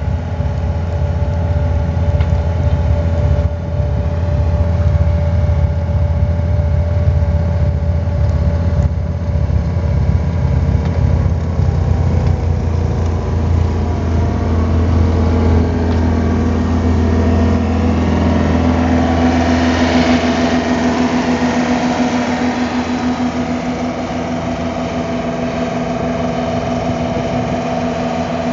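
A 72 hp Gehl skid steer's diesel engine runs steadily while powering a hydraulic skid-steer snowblower. About halfway through, the deep hum gives way to a higher-pitched steady whine, with a brief rush of noise about two-thirds of the way in.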